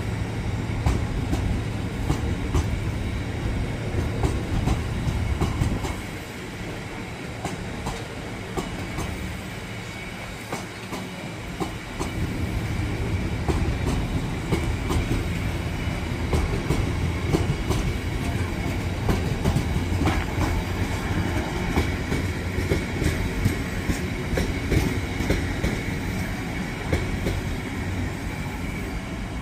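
A train running through the station, its wheels clicking over rail joints and points over a low rumble, with a steady high whine.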